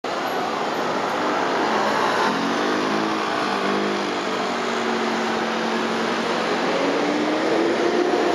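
Steady noise of busy city-road traffic: cars, buses and motor scooters passing, with engine notes rising in pitch as vehicles accelerate away, around two to four seconds in and again near the end.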